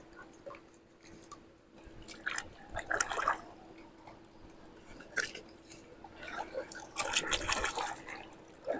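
Faint scattered clicks and light rattles of plastic toy vehicles being handled and unloaded from a toy dump truck, with a faint steady hum underneath.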